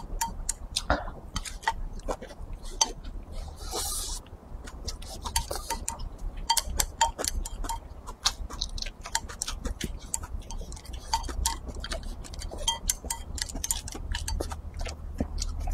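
Wooden chopsticks clicking and scraping against a ceramic bowl, many quick irregular taps, as the last rice is gathered from the bowl.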